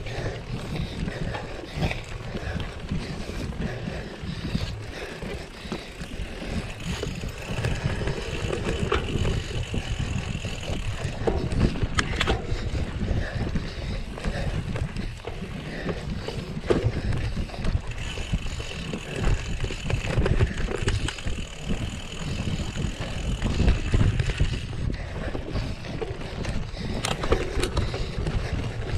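Mountain bike ridden off-road: a steady rumble of tyres over rough ground with many small knocks and rattles, and wind on the microphone. A faint high whine comes in twice, for a few seconds each time.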